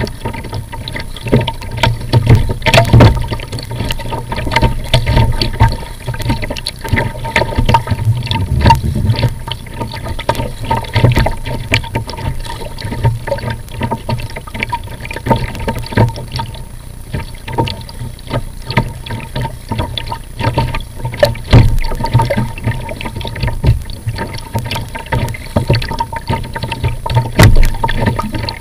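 Choppy water slapping and splashing against the bow of a plastic sit-on-top kayak as it is paddled, in constant irregular splashes, with wind rumbling on the microphone.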